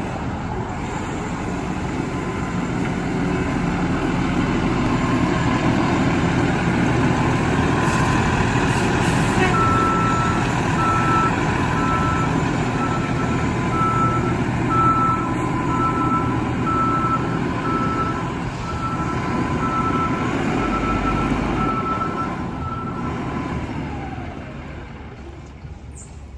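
Fire engine's diesel engine running as the truck backs up, with its reversing alarm sounding an evenly spaced run of beeps from about ten seconds in until near the end. The engine sound fades over the last few seconds as the truck pulls into the bay.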